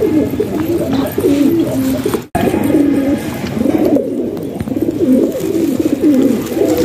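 A flock of domestic fancy pigeons cooing, many overlapping calls at once, with a split-second break in the sound about two seconds in.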